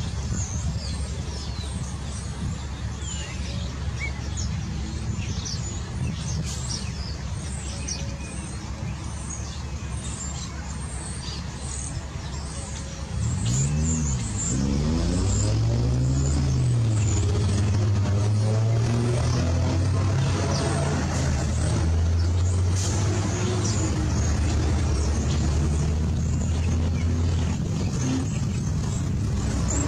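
Birds chirping over a low rumble. About halfway through, an engine starts up, its pitch rising and falling once, then settles into steady running.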